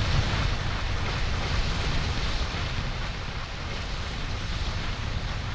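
Animated dragon's fire-breath sound effect: a steady rushing blast of flame with a deep rumble underneath, easing slowly in loudness.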